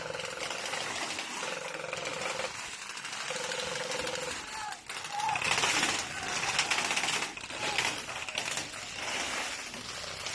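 Airsoft automatic electric gun firing full-auto in three short bursts of about a second each: a rapid, buzzing rattle.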